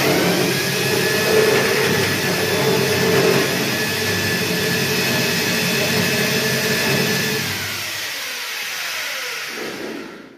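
Corded electric drill running at full speed as it bores a hole up into the ceiling for a downlight, a steady whine with grinding. After about seven and a half seconds the trigger is let go and the motor winds down with a falling pitch.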